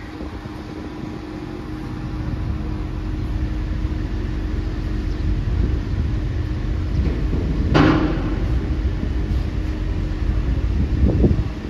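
Steady low rumble of a ferry's engines with wind buffeting the microphone and a faint steady hum. A single sharp knock about eight seconds in, and a softer one near the end.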